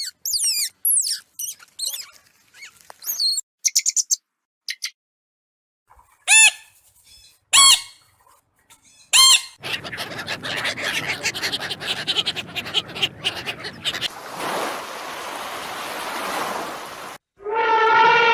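A run of different animal calls, one after another: quick high chirps with sweeping pitch at first, then three loud separate calls a little over a second apart, then several seconds of rough, unpitched sound that changes partway and stops, and a long pitched call starting near the end.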